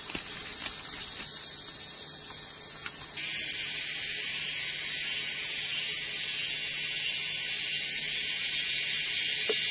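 Steady high-pitched drone of a jungle insect chorus. Its tone shifts slightly about three seconds in.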